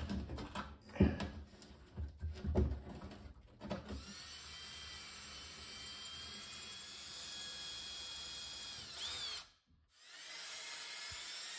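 A few knocks and clatters of handling wood and screws, then an orange Ridgid cordless drill runs steadily for about five seconds, winds down, and starts again for a second run, driving into the wood.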